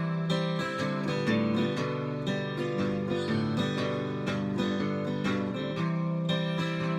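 Acoustic guitar strummed in a steady rhythm with no singing: an instrumental break in a country blues song.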